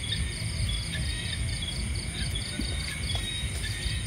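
Chorus of night insects: a high chirp pulsing about three or four times a second over a steady high-pitched drone, with a low rumble underneath.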